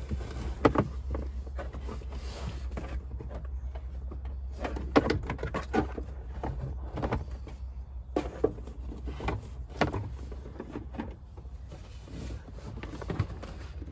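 Twin-core cable being pulled through a hole in a plastic trim panel: irregular rustling, scraping and light knocks of the cable against the plastic, over a steady low hum.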